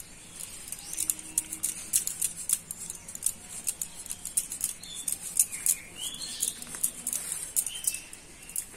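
A raw potato being sliced into thin rounds on a boti, a curved blade fixed upright on a wooden base: a quick, uneven run of crisp cutting clicks, several a second.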